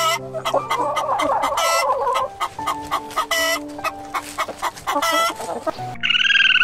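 Domestic chickens clucking in quick, irregular short calls over a steady sustained backing tone. About six seconds in, the sound cuts to a different, repeated call.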